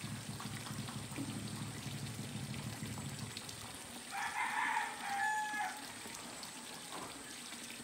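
A rooster crowing once, about four seconds in, over quiet outdoor background.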